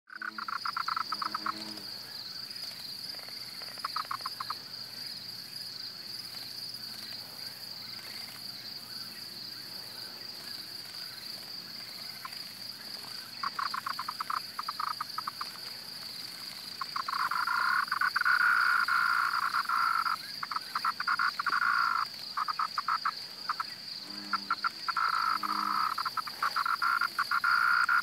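Dying cicada buzzing weakly and brokenly: short stuttering bursts at first, then longer, louder buzzing from a little past halfway. A steady high-pitched insect whine runs underneath throughout.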